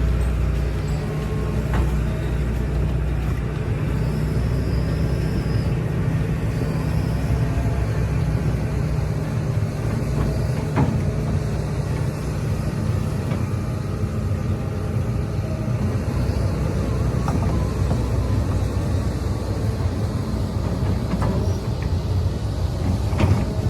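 Hydraulic excavator's diesel engine running steadily while the machine works a steep slope, with a few sharp metallic clanks, one about two seconds in, one near the middle and one near the end.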